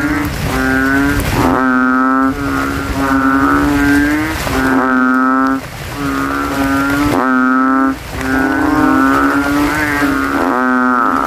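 A chorus of kintel frogs (Kaloula bullfrogs) giving deep, bassy calls, about a dozen in a row, each under a second long and overlapping one another. These are males calling after rain, each trying to be the loudest.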